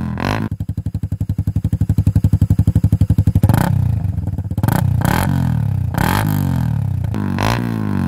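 Suzuki Raider R150 Fi's single-cylinder four-stroke engine through an aftermarket motorcycle muffler. It idles with a fast, even putt of separate exhaust pulses for about three seconds, then the throttle is blipped several times, each rev rising and falling.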